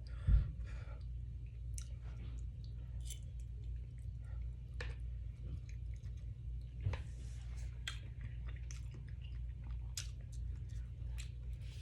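Close-up chewing and mouth sounds of someone eating, with many small scattered clicks, over a steady low hum. A bump about half a second in is the loudest moment.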